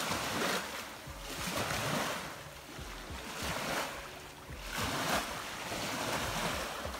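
Small wind-driven waves washing in against the lake shore in swells every second or two, with wind rumbling on the microphone.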